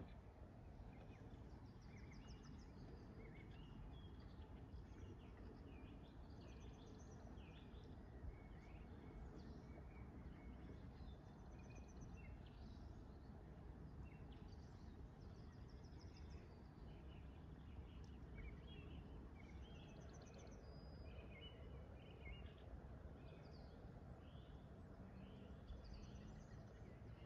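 Faint birdsong: many short chirps and quick trills from several birds, scattered throughout over a steady low background noise.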